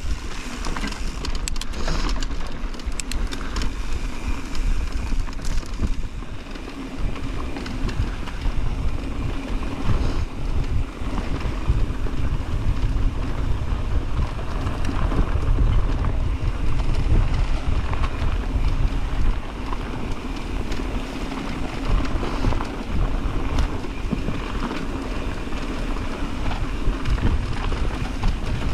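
Mountain bike riding down a dirt trail: wind buffeting the camera microphone over the rolling crunch of the tyres on loose dirt, with clicks and rattles from the bike in the first few seconds.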